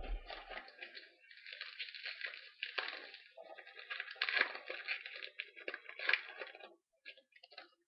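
Crinkling and tearing of a trading-card pack wrapper being opened, an irregular run of crackles with a few sharper cracks, fading out near the end.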